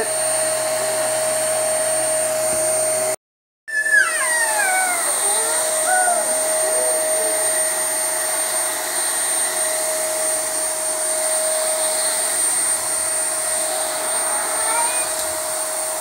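Vacuum cleaner running steadily with a constant high whine as its wand head is worked over a mattress. The sound cuts out completely for a split second about three seconds in. Just after that, a few high, falling squeaky sounds come over it.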